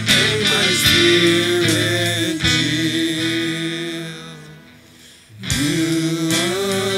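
Live worship music: singing over guitar-led accompaniment. The music dies down about four and a half seconds in and comes back in about a second later.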